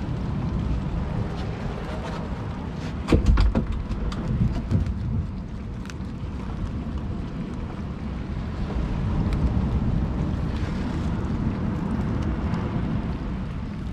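Wind rumbling on the microphone, with crackling and clicking as hands work a spiny lobster free of a nylon gill net, and a louder thump about three seconds in.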